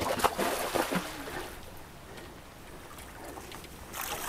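Hooked pike thrashing at the surface near the bank, splashing water loudly through the first second and a half, then again briefly near the end.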